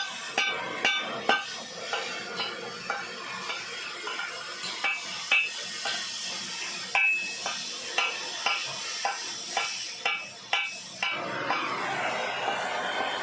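Irregular metallic clinks and taps, some ringing briefly, over a steady hiss, from metal repair work on a hydraulic scrap press.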